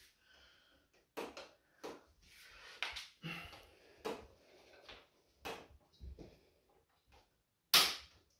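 Sharp plastic clicks and knocks, about eight in irregular succession, as the LG 47LB652V TV's plastic frame is pressed into place along its edge by hand. The loudest snap comes near the end.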